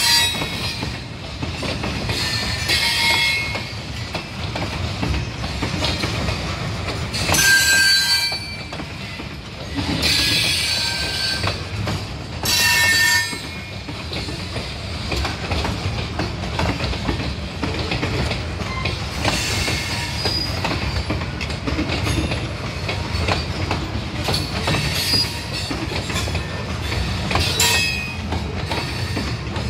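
Freight train of covered hopper cars rolling past: a steady rumble and clatter of steel wheels on rail, with high metal-on-metal wheel squeals that come and go, loudest about seven and twelve seconds in.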